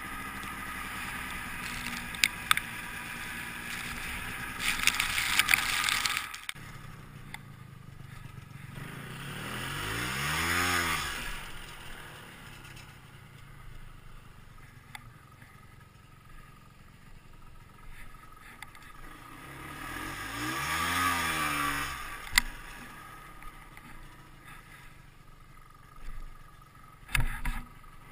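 Ski-Doo Tundra snowmobile's two-stroke engine running steadily with some scraping and clattering, then dropping back suddenly about six seconds in. It is then revved up and let back down twice, about ten seconds apart, while the sled sits buried in deep powder, with a few sharp knocks near the end.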